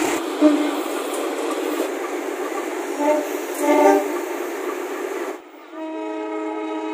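Rolling train noise with short train air-horn blasts about half a second in and again around three to four seconds in. Then, after an abrupt cut, a steady multi-tone train air horn starts near the end and holds.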